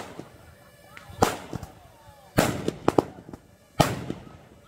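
Firework bangs: a string of sharp reports at uneven intervals, each trailing off in a short echo, as the 'metralleta' firework battery fires in fits and starts after stalling.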